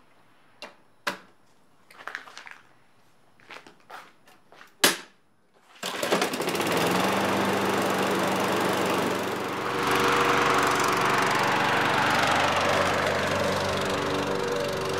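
A few short clicks and knocks as the lawn mower's engine is worked on by hand, one sharper than the rest just before the start. Then, about six seconds in, the walk-behind gasoline lawn mower engine starts and runs steadily.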